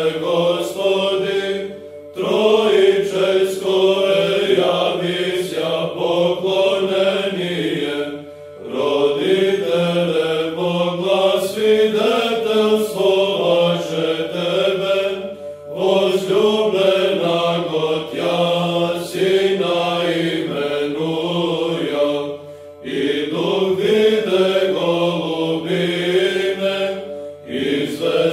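Chanted hymn in Orthodox church style: a slow melody sung in long phrases, with a brief break every six or seven seconds.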